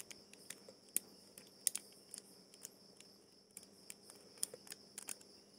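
Faint, scattered small clicks and taps of an opened fishing reel and its metal parts being handled, over a steady high chirring of crickets.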